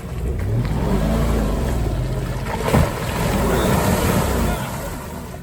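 Off-road 4x4 engine running under load, its revs rising and falling, over a steady rushing noise, with a sharp knock about halfway through.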